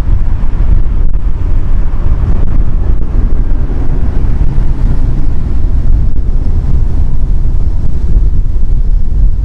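Strong crosswind buffeting the microphone as a loud low rumble, over the fading roar of a departing Boeing 747's jet engines, which thins out after the first couple of seconds.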